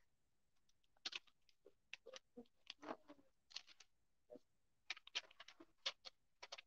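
Faint, scattered short clicks and rustles of handling, made while a scripture passage is being looked up; the sounds are irregular, with clusters about a second in, around three seconds in, and near the end.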